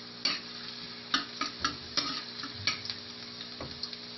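Minced garlic sizzling in hot cooking oil in a wok at the start of a sauté: a steady frying hiss with a sharp click every half second or so.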